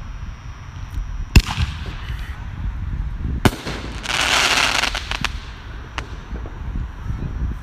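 A firework ball shell: a sharp bang from its launch about a second and a half in, a second sharp bang as the shell breaks about two seconds later, then about a second of dense crackling.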